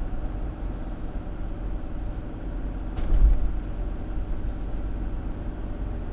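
Car driving at speed, heard from inside the cabin by a dashcam: steady low road and engine rumble. About three seconds in, a single sharp thump as the car goes over a bump in the road, briefly louder.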